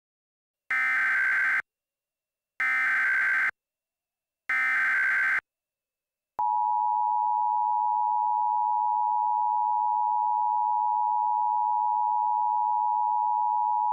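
Emergency Alert System header: three short bursts of SAME digital data tones, each about a second long and about two seconds apart. About six seconds in, the steady two-tone EAS attention signal begins. Together they announce an incoming emergency alert.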